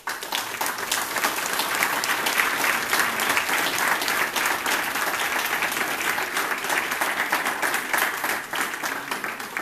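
Applause from a roomful of people: dense, steady clapping that starts suddenly.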